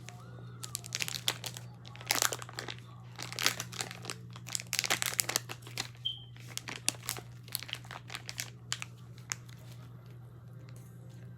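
Plastic packaging crinkling and crackling as it is handled and opened, in quick clusters that thin out over the second half.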